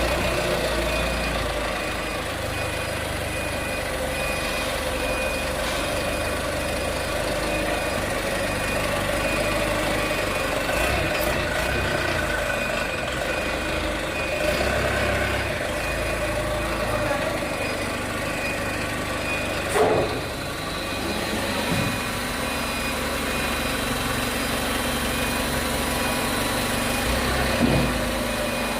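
Hydraulic straw baling press running steadily with a constant machine hum, and a high beep repeating over it. A couple of short knocks come about two-thirds of the way through and again near the end.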